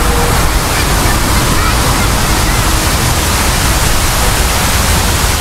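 Water cascading down a large outdoor fountain wall, the Houston Waterwall, a loud steady rush of falling water.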